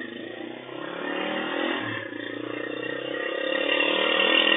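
A vehicle engine running off-camera, growing steadily louder through the clip.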